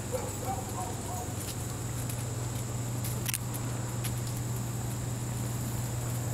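Quiet outdoor ambience: a steady high insect drone over a low hum, with a few faint squeaks from German Shorthaired Pointer puppies at play in the first second or so, and a single sharp click a little past the middle.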